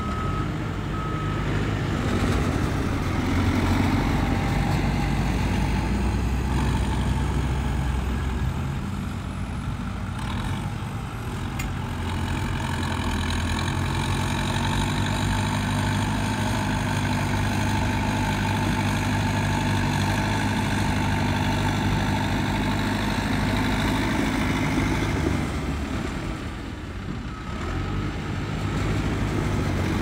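Heavy diesel engine of earthmoving machinery running steadily, its low drone rising and falling with load as it works. A couple of short high beeps sound right at the start.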